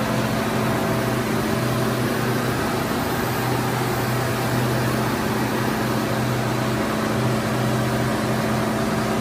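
1850 mm stretch film machine running at speed: a steady mechanical hum with a constant low drone under a broad hiss.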